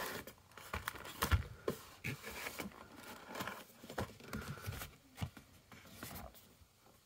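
Cardboard packaging being handled by hand: a box flap opened and cardboard inserts moved and set down, with scattered light taps, scrapes and rustles, dying down near the end.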